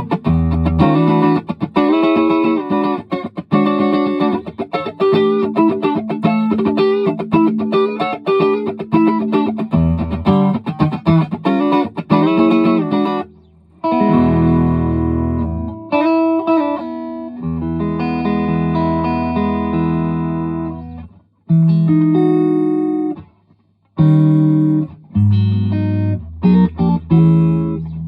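Electric guitar (a Fender Stratocaster through a Vox AC30 amp) played through a Free The Tone SC-1 Silky Comp compressor pedal: quick picked single-note lines for about the first half, then after a short break, held chords and notes with a few brief pauses. The compression is meant to sound natural, with little squash or glare.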